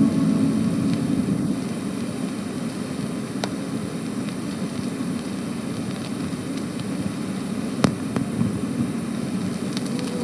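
Steady rumbling hiss of an old recording's surface noise, with a few scattered clicks and crackles, as the organ interlude stops at the start.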